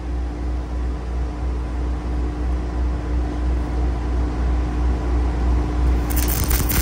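An engine runs with a steady low drone. About six seconds in, a MIG welding arc strikes and starts crackling and hissing as a weld bead is laid on the cracked steel mount.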